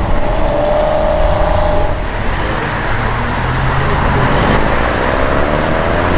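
Audi RS6 engine running loudly, its pitch starting to climb about five seconds in as the car accelerates.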